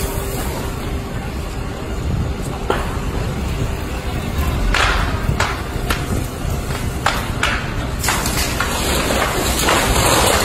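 Large fire burning through a wooden structure: a steady rushing noise with a low rumble and sharp cracks and pops of burning timber every second or two. From about eight seconds in a louder hiss joins, as a fire hose sprays water into the flames.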